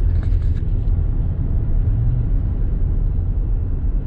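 Steady low rumble of a vehicle being driven, heard from inside the cab: engine and road noise, with a few light clicks in the first half second.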